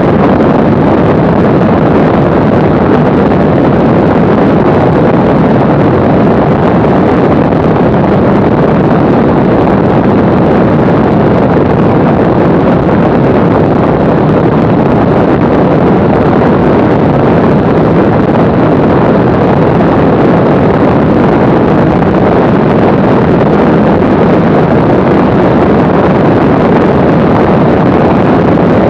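Steady in-flight noise of a Mooney M20C light aircraft: wind rushing over the camera's microphone mixed with the drone of the engine and propeller, loud and unchanging.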